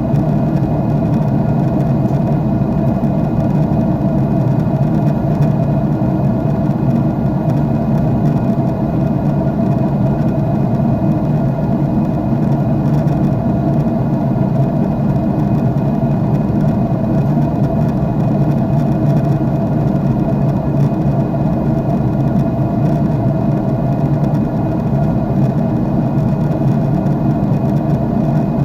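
Airliner jet engine noise heard inside the cabin: a steady, even drone with a few faint steady tones above it.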